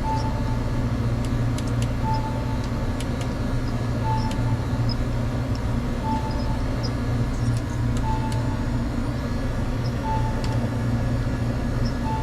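Steady low electrical or machine hum with a short, high electronic beep repeating about every two seconds, and a few faint clicks.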